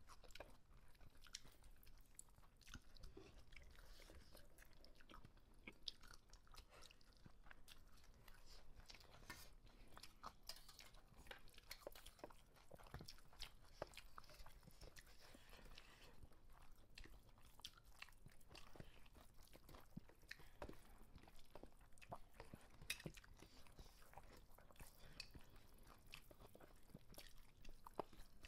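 Faint sounds of two people eating biryani by hand from steel plates: chewing, with scattered small clicks and ticks of fingers working the rice against the plates.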